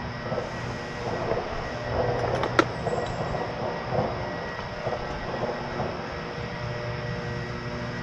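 Rattling and scraping as a 12-volt lead-acid battery and its terminal hardware are handled in a generator's battery compartment, with one sharp click about two and a half seconds in, over a steady hum.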